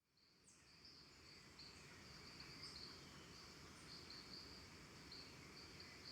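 Faint outdoor ambience: a steady, high-pitched insect chirring that swells and dips, with a few brief higher chirps over a light hiss.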